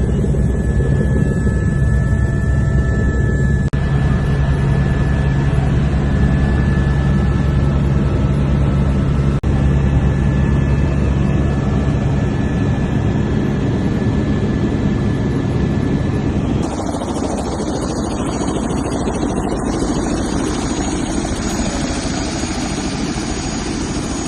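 Helicopter running: a loud, steady low drone of rotor and engine, in a few joined clips. About two-thirds of the way in, the low drone drops back and a more even rushing noise takes over.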